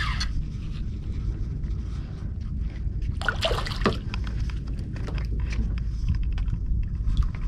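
Water splashing and sloshing as a hooked fish thrashes at the surface close to the raft, with a louder splash about three seconds in, over a steady low rumble of wind on the microphone.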